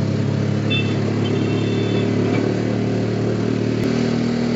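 Auto-rickshaw engine running with a steady low drone as it drives, heard from inside the open passenger cabin. A couple of short high-pitched beeps sound about a second in.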